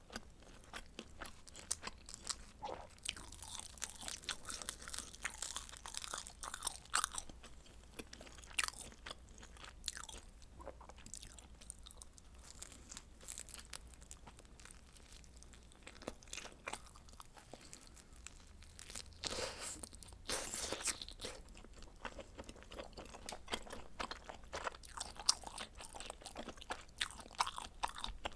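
Close-miked chewing and biting of frozen pizza: crisp crunching of the crust among softer wet chewing. The crunching comes thickest in two stretches, a few seconds in and again about two-thirds of the way through.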